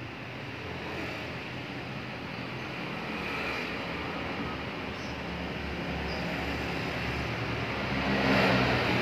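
An engine running steadily with a low hum, swelling louder near the end.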